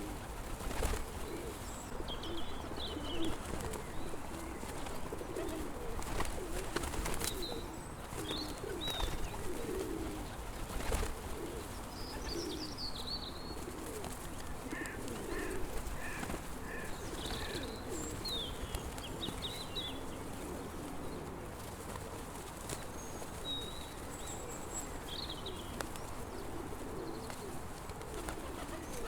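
Pigeons cooing, many low burbling coos overlapping without a break, with short high chirps from small birds scattered through.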